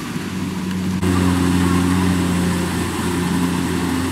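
Kubota combine harvester's engine running steadily as a continuous hum. It gets suddenly louder about a second in.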